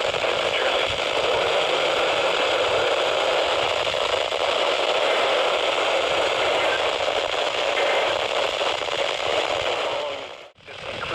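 Steady hiss and crackle of static from a weather-radio receiver on a weak or noisy signal. It cuts out briefly about ten seconds in, then comes back.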